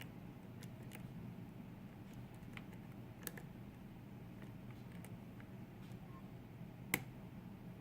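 Small, irregular metallic clicks and ticks of a lock pick working the pin stack of a KIK lock cylinder under tension, with a sharper click about seven seconds in.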